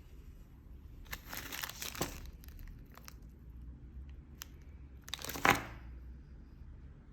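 Paper or plastic packaging crinkling as it is handled, in two bursts about a second long with a few light clicks between; the second burst, past the middle, is the louder.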